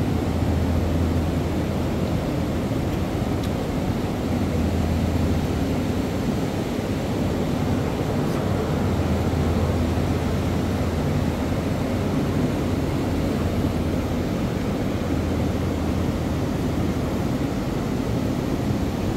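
A steady low mechanical drone with a rushing noise over it; its low hum swells and fades every few seconds.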